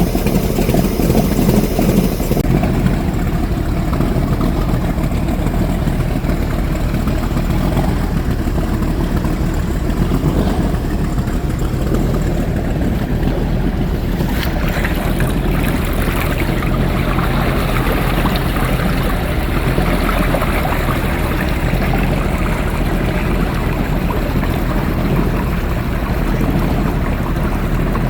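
Motorboat engine running steadily under way, with the rush of water along the hull.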